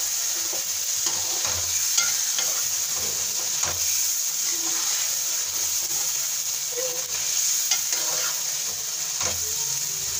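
Chicken and masala sizzling as they fry in a metal karahi, stirred with a metal ladle that clicks and scrapes against the pan a few times.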